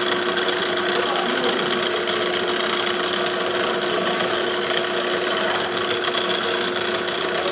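Pillar drill running steadily, its motor and drive giving a constant hum with one steady tone.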